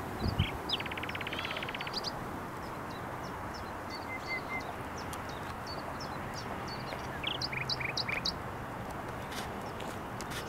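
Small birds chirping and twittering, with a fast buzzy trill about a second in and a quick run of chirps later on, over a steady background hiss.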